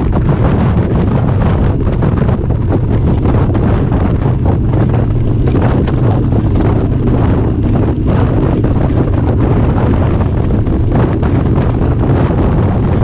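Heavy wind buffeting on the microphone of a motorcycle riding at steady cruising speed. Under it runs the steady low hum of a Harley-Davidson's V-twin engine.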